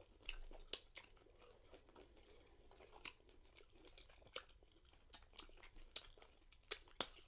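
Two people chewing sauce-coated shrimp: faint, scattered wet mouth clicks, a dozen or so.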